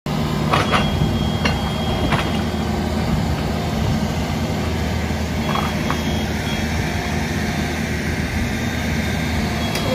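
A large engine, such as a truck's or a work machine's, idling steadily. A few sharp knocks come in the first two seconds, and a faint high steady tone comes and goes.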